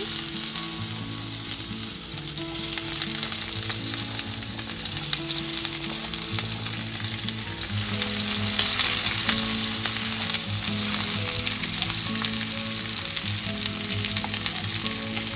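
Sliced onions sizzling in hot refined vegetable oil in a nonstick frying pan, a steady frying hiss just after they go into the heated oil. It grows a little louder about halfway through.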